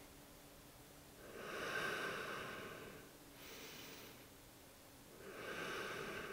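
Slow, deep human breathing, close to the microphone, during a held yoga stretch: two long breaths of about two seconds each, with a quieter breath between them.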